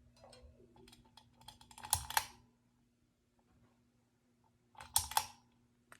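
Two clusters of clicks and rattles, the first about two seconds long and the second about half a second, as the Hampton Bay Rockport ceiling fan is switched from low toward medium speed. Under them is a faint steady hum from the running fan motor.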